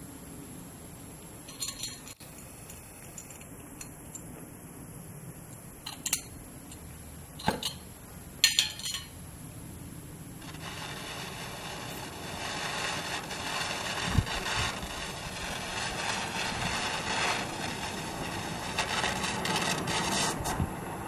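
Oxy-acetylene cutting torch: a few sharp metallic clicks and clinks as the torch and its fittings are handled. Then, about ten seconds in, a steady hiss of gas starts suddenly and grows louder, with a low thump partway through.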